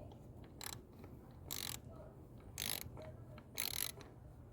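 A 3/8-drive ratchet with a deep socket clicks in short runs, about one a second, on each back-swing as a PCV valve is tightened into the valve cover.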